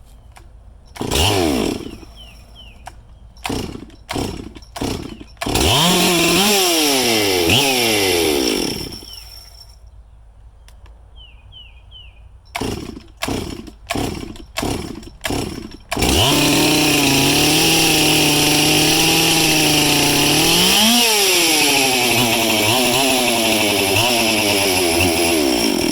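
Stihl MS361 two-stroke chainsaw being pull-started. After a pull and then three quick pulls, it fires and runs for about three seconds with its revs rising and falling before it dies. Four more pulls and it starts, idling steadily with one short rev partway through.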